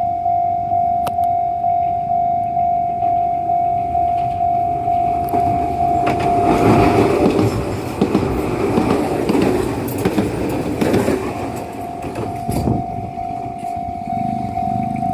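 Level crossing alarm bell ringing in steady strokes, about two a second. An Enoden (Enoshima Electric Railway) train runs over the crossing from about six to eleven seconds in, its rumble covering the bell. The bell keeps ringing after the train has passed.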